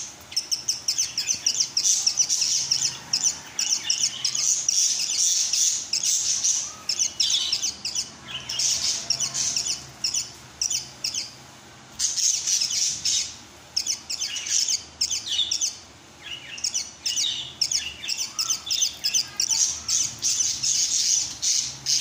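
Budgerigar chirping: runs of fast, high chirps in bouts of a few seconds, broken by short pauses.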